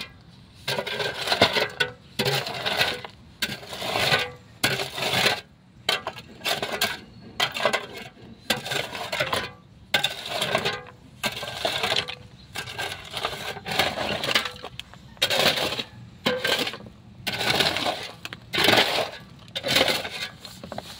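Metal shovel scraping and scooping broken concrete rubble out of a tomb niche: a steady run of gritty scrapes, roughly one a second, with chunks of concrete clinking against each other.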